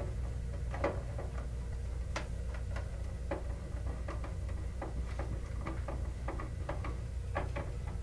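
Hand screwdriver turning a screw terminal on an alarm control panel's terminal strip: a string of light, irregular clicks as a transformer wire is tightened down, over a steady low hum.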